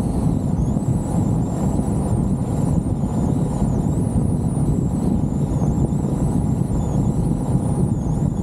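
Wind blasting over the microphone in a topless Jeep driving downhill, mixed with road and engine noise, steady throughout. A faint, high, wavering whine runs above it.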